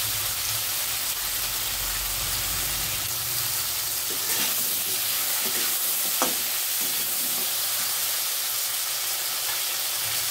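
Potato chunks sizzling in hot oil in a metal wok (kadai), a steady frying hiss. Between about four and seven seconds in, a spatula stirs them, scraping against the pan, with one sharp knock near the middle.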